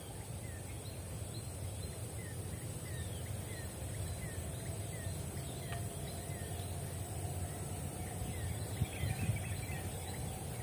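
Wild ambience: a bird repeating short falling chirps about twice a second over a steady high-pitched insect hiss, with two soft knocks near the end.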